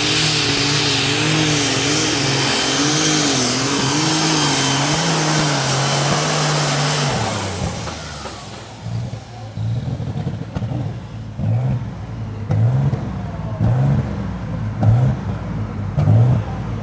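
Super Stock pulling tractor's turbocharged engine running flat out under load, with a warbling tone over its steady note. About seven seconds in it drops off sharply, then revs in short repeated blips.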